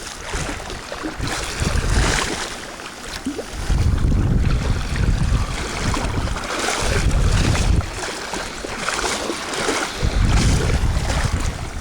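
Wind buffeting the microphone in gusts, over a steady wash and splashing of water.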